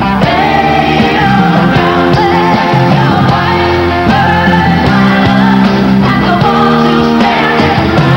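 A live band playing a song, with women's voices singing together.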